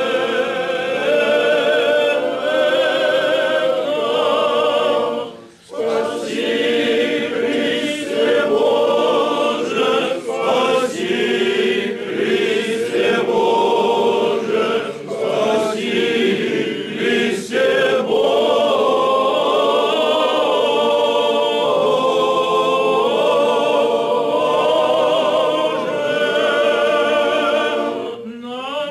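A choir of Orthodox clergy, men's voices, singing a church hymn together unaccompanied. There is a short break between phrases about six seconds in.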